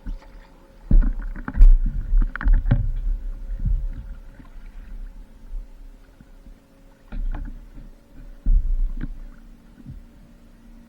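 Paddling on the water: paddle strokes splashing in two bouts, about a second in and again near the end, with low rumbling over the microphone.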